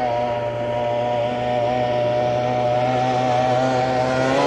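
Racing tunnel-hull powerboat's outboard engine running flat out, a steady high-revving drone that grows louder as the boat approaches.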